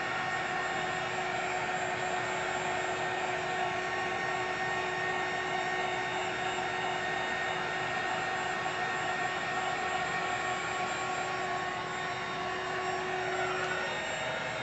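Handheld heat gun running steadily, its blower fan giving a rushing air noise with a steady whine; the whine's pitch shifts just before the end.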